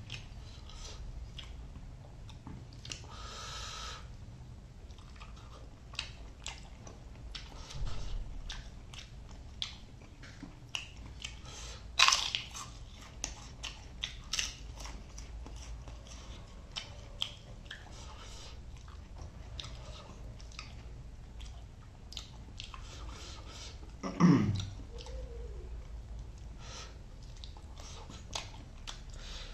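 A person eating close to the microphone: steady wet chewing with many short crisp crunches, one sharp loud crunch about twelve seconds in. About twenty-four seconds in comes a short vocal sound falling in pitch.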